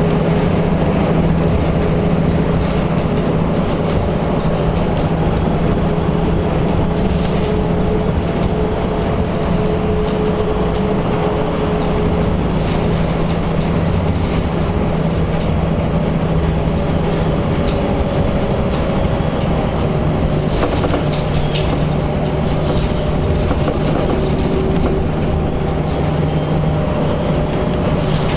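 Steady vehicle engine hum with road noise. The engine's pitch dips briefly about two-thirds of the way through, and a few faint clicks are heard.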